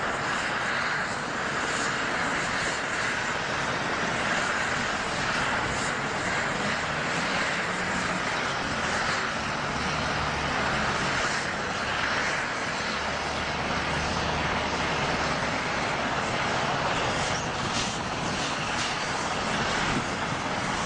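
Diesel engine of a Volvo A25 articulated dump truck running steadily under load as it climbs a steep dirt slope, with a deeper drone for a few seconds past the middle.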